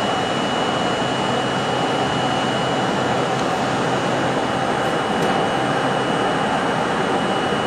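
R32 subway car running at steady speed through a tunnel: steady rail and wheel noise with the traction motors' howl and a thin high whine, and no letting up.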